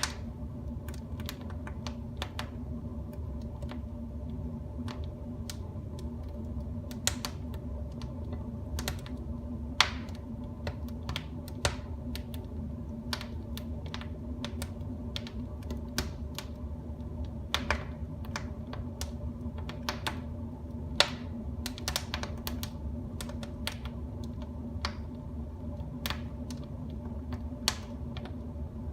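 Wood fire burning in a fireplace, crackling with irregular sharp pops, a few of them louder, over a steady low rumble.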